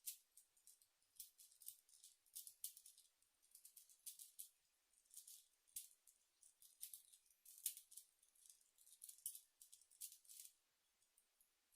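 Faint, rapid clicking and rattling of a tiny 2 cm 3x3 cube as its layers are turned fast, in irregular flurries of turns.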